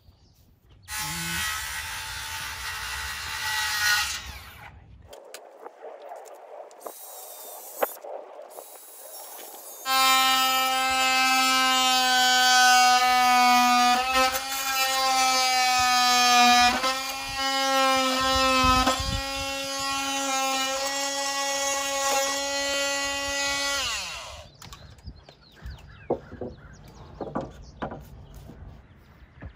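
Cordless oscillating multi-tool cutting a notch into the end of a cedar fence rail: a steady, high-pitched buzzing whine for about fourteen seconds, dipping slightly as the blade bites. It then winds down with a falling pitch. A shorter, noisier burst comes about a second in.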